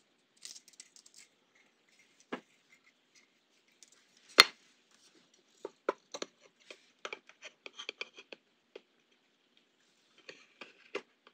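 Small handling sounds of metal tweezers and fine enamelled copper wire against a small circuit board and its ferrite cores: scattered light clicks and scratches, with one sharper click about four seconds in and a quick run of small ticks a little later.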